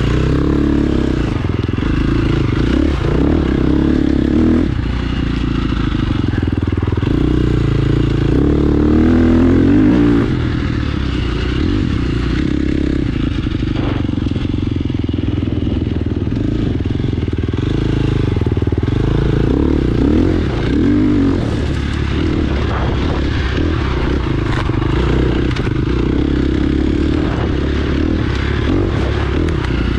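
A 2017 KTM 350 XC-F's single-cylinder four-stroke engine running as the dirt bike is ridden, its revs rising and falling with the throttle.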